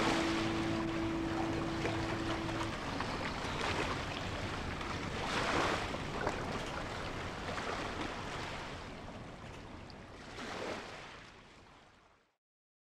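Sea waves washing in slow swells, under the last chord of the background music, which fades away in the first three seconds; the wave sound then fades out to silence about twelve seconds in.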